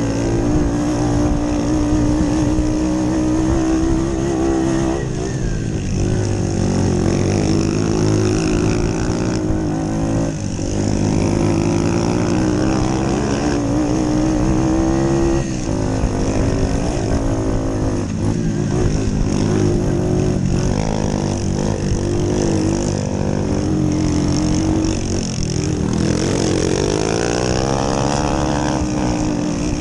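Small moped engine running hard under racing load, heard from on board. Its pitch climbs and drops again and again as the rider accelerates, changes gear and backs off for corners.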